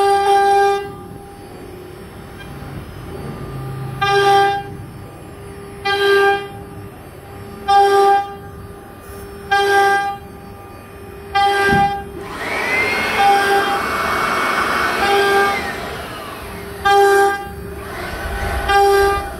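CNC router spindle running with a steady high whine that swells loudly for about half a second roughly every two seconds as the bit cuts into the board, with a longer stretch of harsher cutting noise in the middle.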